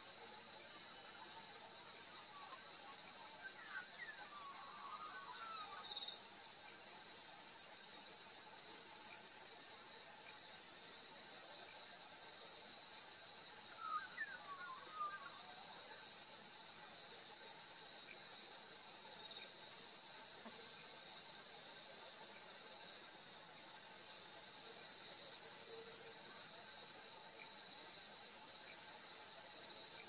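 Steady chorus of crickets, a high, fast-pulsing trill, with two brief bird calls about four seconds and fourteen seconds in.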